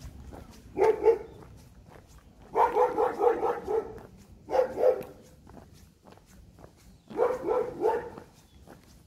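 A dog barking in four bursts of quick, repeated barks, the longest run lasting about a second and a half.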